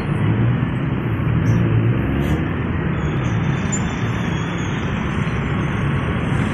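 Steady rumble of congested road traffic below: engines of vans, cars and motorcycles idling and crawling in a jam, with no single vehicle standing out.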